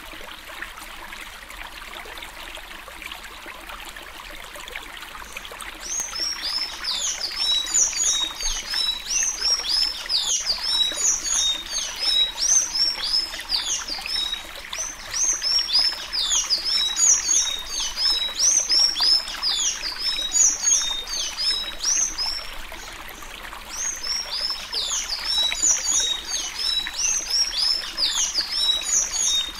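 Sanhaço tanager singing the Alagoas 'suí suí' song: a fast, unbroken run of high, squeaky, down-slurred notes. It starts about six seconds in and breaks off briefly about two-thirds of the way through. A steady hiss sits underneath and is heard alone at first.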